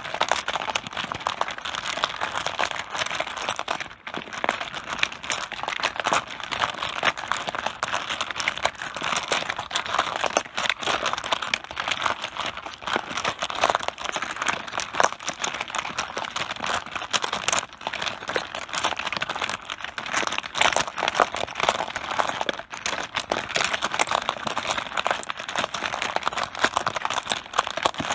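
Mahjong tiles knocking together on a tabletop in a dense, unbroken clatter of small clicks.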